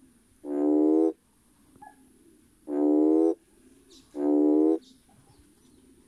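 Male red toad (Schismaderma carens) giving its mating call to attract females: three short, low, steady-pitched calls, each just over half a second long, the last two coming close together.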